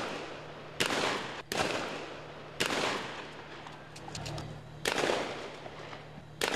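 Police gunfire and blasts on a city street: five loud reports at uneven intervals, each followed by echo, with a few fainter cracks in between. Police are firing sound grenades, tear gas canisters and shots to scatter a crowd.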